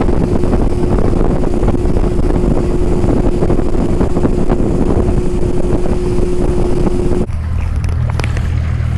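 Bass boat's Yamaha outboard motor running at speed, with rushing water and wind buffeting the microphone over a steady engine hum. About seven seconds in the sound switches abruptly to a lower, quieter engine hum as the boat moves slowly.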